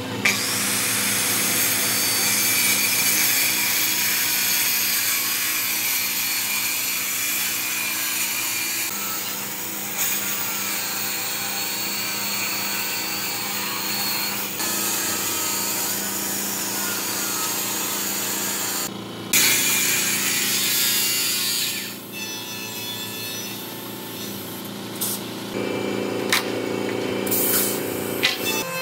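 Makita circular saw ripping lengthwise through a long wooden plank: a steady, loud cutting noise that stops about three-quarters of the way through. Then come a few knocks of wood as the cut strip is handled, over a steady low hum.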